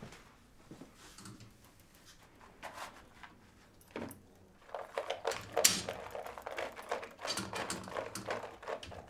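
A stainless steel kennel cage rattling and a plastic food bowl knocking as it is set inside the cage: a run of irregular clicks and knocks that starts about four seconds in.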